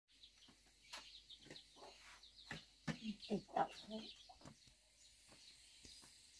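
Chickens clucking in short, scattered calls, most of them in the middle, with a few light knocks.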